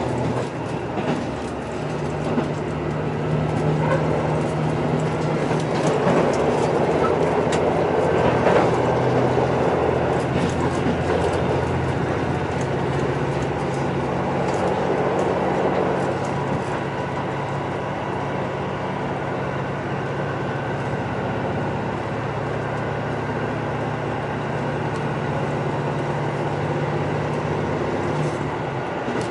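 Interior running sound of a JR Central KiHa 85 series diesel railcar (car KiHa 84) travelling at speed: the steady drone of its underfloor Cummins diesel engines, whose note firms up about two seconds in, over rumbling wheel and rail noise. The rail noise swells twice, once between about six and ten seconds in and again around fifteen seconds.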